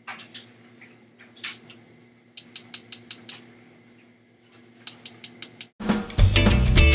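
Gas stove burner igniter clicking in two quick runs of about seven clicks a second, with a few single clicks, over a steady low hum. Near the end, rock music with guitar starts abruptly and becomes the loudest sound.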